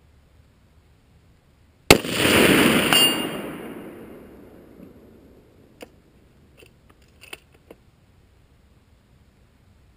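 A single rifle shot from an FN SPR A3G bolt-action rifle: a sharp crack about two seconds in, then a long rolling echo that dies away over about three seconds, with a second fainter crack about a second after the shot. A few light clicks follow near the end.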